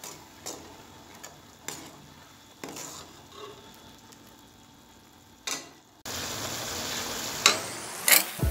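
Metal spoon stirring a simmering peas-and-tomato masala in a metal pot, with scattered light clinks of the spoon on the pot. About six seconds in a louder, steady sizzle starts, and a few sharp clatters near the end come as cubed potatoes go into the pot.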